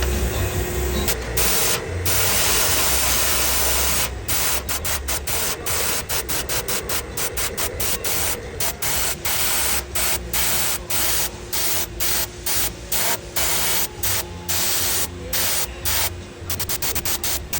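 Paint spray gun hissing as it sprays a rim refinish, cut into many short bursts with brief gaps, the gaps coming faster in the second half.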